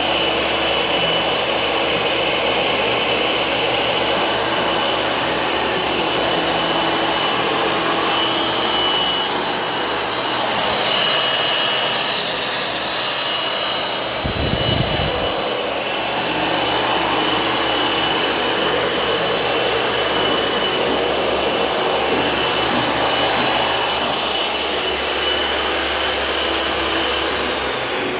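Electric woodworking power tool running steadily at high speed: a loud motor whine over a noisy hiss, with a brief low thump about halfway through.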